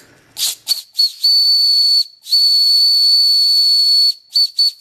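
Whistle on a small homemade steam boiler blowing in a string of blasts over a hiss of steam: a few short toots, then two longer blasts of about one and two seconds, then more short toots near the end. It is a single steady high-pitched note.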